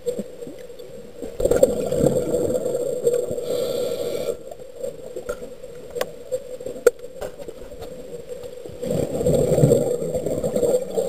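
Muffled underwater sounds of a diver breathing on a closed-circuit rebreather: two long breaths, with a few sharp clicks in the quiet stretch between them.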